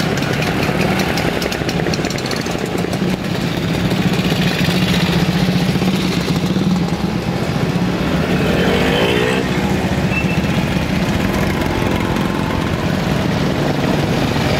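Many vintage motorcycles, two-stroke mopeds and scooters riding slowly past, their small engines running together in a steady, dense drone. About eight seconds in, one engine briefly rises and falls in pitch as it passes.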